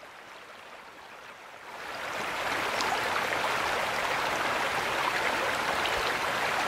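Small garden pond waterfall: water spilling and splashing over stacked stone ledges into the pool, a steady rush that fades in about two seconds in.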